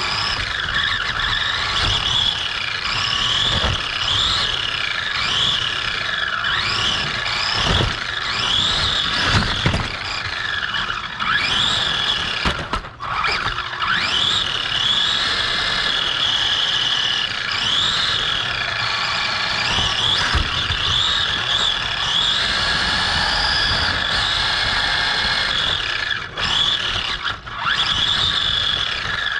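Onboard sound of a Redcat Cyclone XB10 electric RC buggy racing on a carpet track: the motor and gears whine, rising and falling in pitch over and over with the throttle, over steady tyre and chassis rattle. There are a few low thumps, and the whine drops away briefly about 13 seconds in and twice near the end.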